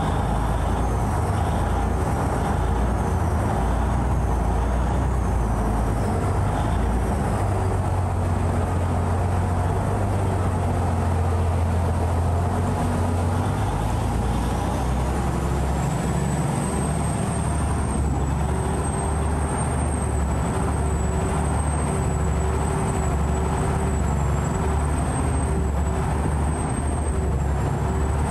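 Saen Saep canal express boat's engine running loud and steady under way. A faint high whine rises about halfway through and holds.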